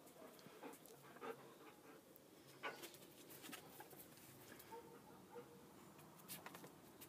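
Near silence: faint rustling and scattered light taps from dogs moving about.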